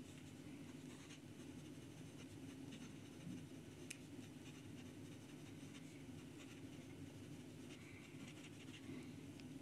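Faint scratching of a fountain pen nib on paper as it writes: a Delike #5 nib in a Jinhao 51A, which writes very smooth and wet. One small click about four seconds in, over a low steady hum.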